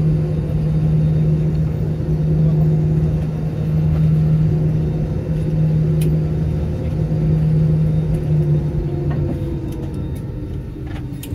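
Steady low drone and rumble inside an Airbus A320 cabin on the ground. About nine seconds in the hum weakens and a whine slowly falls in pitch, with a few light clicks.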